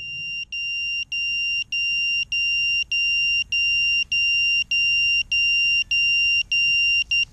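A quadcopter's onboard buzzer beeping steadily on one high pitch, each beep about half a second long with a short break, roughly one and a half beeps a second. The motors are stopped and the drone lies in the grass after coming down, the state in which an FPV quad's alarm beeper sounds.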